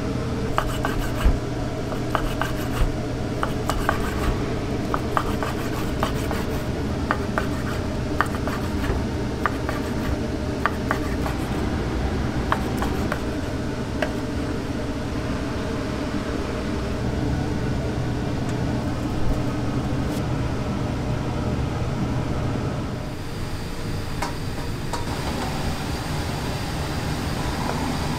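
Commercial kitchen sounds: a steady low hum under scattered clinks and scrapes of utensils and dishes. The sound eases a little about five seconds before the end.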